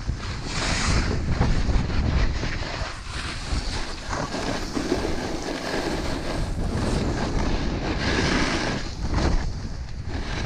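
Strong wind buffeting the microphone: a steady low rumble, with louder rushes of hiss about half a second in and again near the end.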